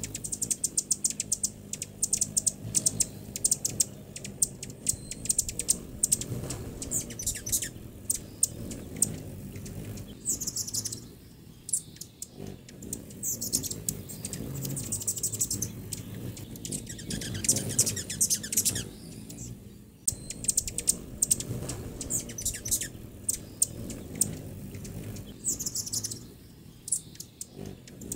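Hummingbirds giving rapid, sharp, high chip notes and short squeaky twitters, in several bursts with brief breaks between them.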